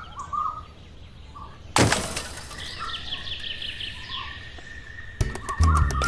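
Birds chirping, broken by a sudden crash with a lingering ringing tone about two seconds in; music with a steady beat starts near the end.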